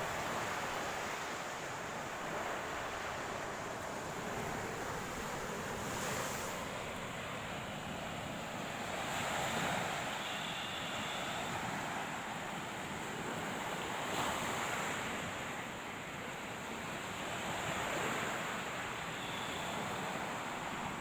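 Surf washing onto a shoreline: a steady rush of waves that swells every few seconds as each wave breaks, with some wind.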